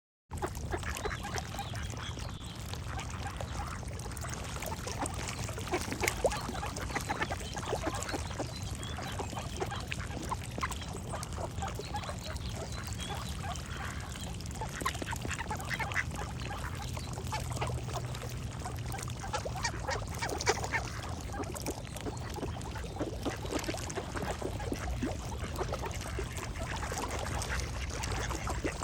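Ducks quacking repeatedly, with songbirds singing, over a steady low background noise.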